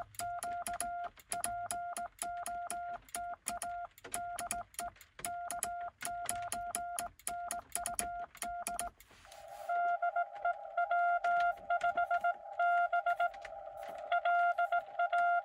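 Morse code on a single beeping tone: a cootie (sideswiper) key is being worked, with sharp clicks from the key's contacts along with each element. About nine seconds in, a louder Morse signal takes over, heard over a narrow band of receiver hiss as another station comes back.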